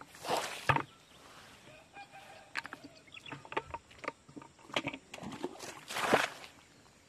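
Water poured from a plastic bucket splashing onto wet ground and a fishing net, twice: a short pour at the start and a louder one about six seconds in. Scattered small splashes and knocks come between.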